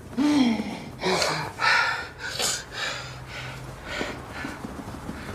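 A man breathing hard in ragged gasps, about six sharp breaths a second or so apart, after a short falling moan at the start.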